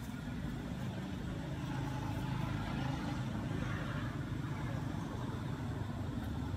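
A steady low rumble of outdoor background noise, with no distinct calls or knocks standing out.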